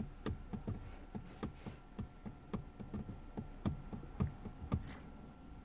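Light irregular tapping inside a stationary car, about four taps a second, stopping about five seconds in, over a faint steady hum.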